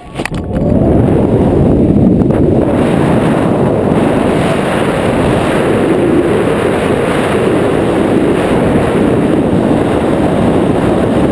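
Wind rushing over a wingsuit jumper's camera microphone in a freefall dive. It builds quickly in the first second, then stays loud and steady.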